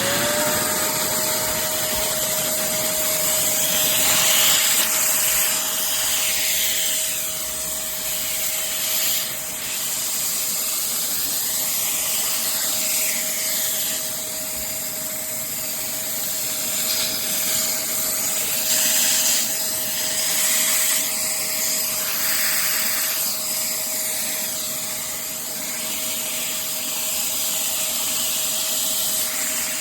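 Wet/dry shop vacuum switched on, its motor spinning up within a fraction of a second to a steady whine over a loud rush of air, then running steadily.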